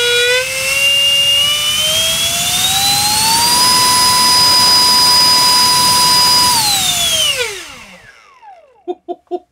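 Electric ducted fan, a 64 mm unit with a five-blade rotor driven by a GoolRC 2948 4800 kV brushless inrunner on a 4S battery, run up to full throttle: a loud whine that climbs steadily in pitch for about three and a half seconds, holds steady at full power for about three seconds while drawing around 69 A and 1 kW, then falls away as the throttle is cut and the fan spools down.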